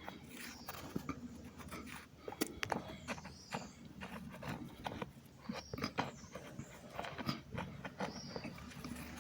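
Cornstarch crunching: a run of irregular, soft clicks and crackles, a few each second, with the odd brief squeak.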